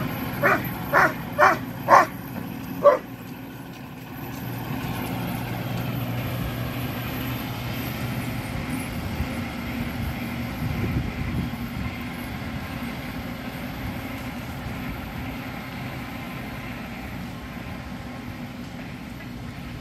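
A Doberman barks five times in about three seconds, then stops. Behind and after it, a tractor's engine runs steadily as it mows with a rear rotary cutter, swelling slightly around ten seconds in.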